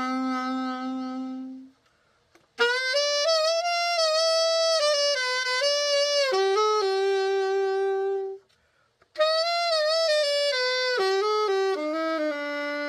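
Novasax AX-502 vintage alto saxophone played as a play test after a precision setup. It plays three melodic phrases, each ending on a held note, with two short pauses for breath about two and eight and a half seconds in.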